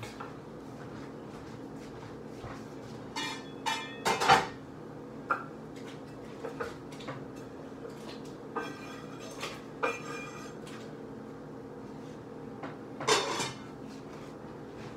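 Pots, pans and utensils being handled off to one side: scattered short clanks and knocks, with the loudest clusters about four seconds in and again near the end. A steady low hum runs underneath.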